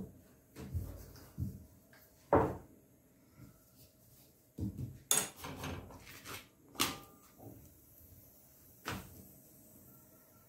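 Scattered knocks and light clatters as a spinach paratha is turned over by hand on an iron tawa.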